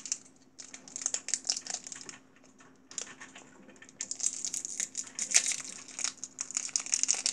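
Shiny Toxic Waste sour candy wrapper crinkling as fingers pick and tear it open, in irregular crackly bursts, busiest from about four seconds in.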